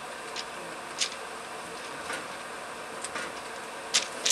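Sharp metallic clicks and clinks at irregular intervals, about one a second with a louder pair near the end, from hand tools and fittings being worked on an overhead catenary wire. They sound over a steady background noise.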